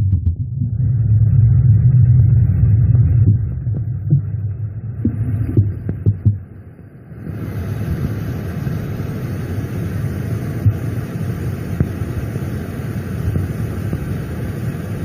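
Low throbbing machine-like hum picked up through a borehole listening setup, which the recorders take for tunnel-digging machinery working underground. It is heaviest at first, dips briefly a little past halfway, then continues steadily with a hiss over it.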